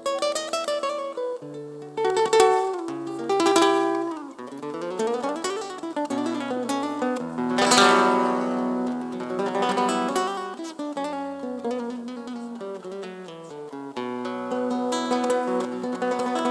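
Solo acoustic guitar (violão) playing: quick runs of plucked notes alternating with struck chords, the loudest chord about eight seconds in.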